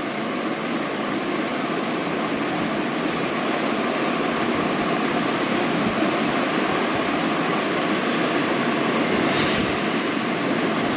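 Steady, even rushing hiss of background room noise, with no distinct events; it brightens briefly about nine seconds in.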